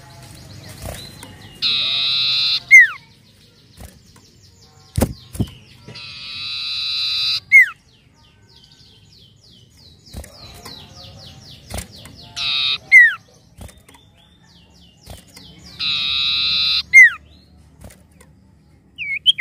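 Common iora singing. Four times it gives a long, buzzy trill that ends in a sharp down-slurred whistle, with a run of quick falling chirps near the middle.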